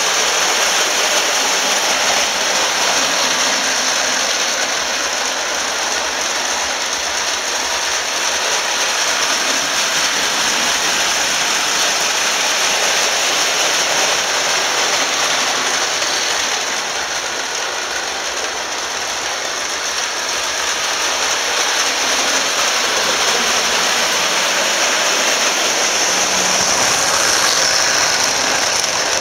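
Vintage Marx tinplate toy electric trains running fast around the track, giving a steady noise of spinning motors and wheels on the tinplate rails. It swells near the end as the train passes close by.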